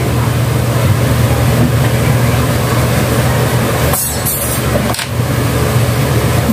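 Steady low mechanical hum over a constant noisy background, with two sharp clicks about four and five seconds in.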